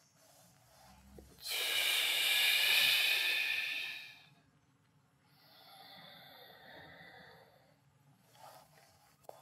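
A person breathing hard through the mouth during a floor exercise. First comes one loud, breathy breath lasting about two and a half seconds. About a second later a quieter breath follows, lasting about two seconds.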